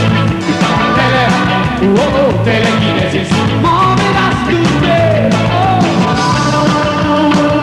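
Rock band playing live: electric guitar, bass and drum kit, with a melody line that slides up and down in pitch over a steady beat.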